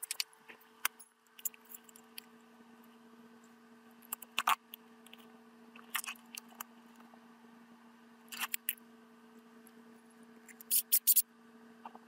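Scattered sharp clicks and taps of tools being handled, a few seconds apart, with a quick cluster of louder clicks near the end. A faint steady low hum runs underneath.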